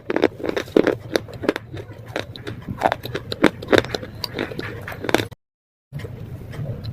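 Close-up crunching and chewing of slate, with irregular hard, crackly bites. The sound drops out completely for about half a second past the middle.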